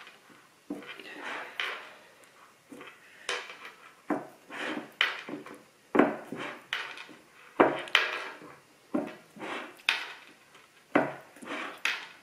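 Pie dish knocking and shifting on a wooden butcher-block counter while fingers press and crimp the edge of the pie dough, in irregular taps about once a second.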